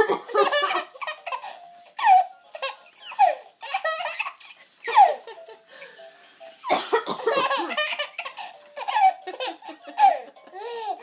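A baby's belly laughs in short repeated bursts, set off by a woman's coughing, which comes as a few louder, noisy bursts between the laughs.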